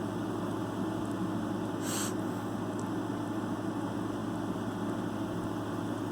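Steady low hum with a hiss over it, with one brief, short hiss-like rustle about two seconds in.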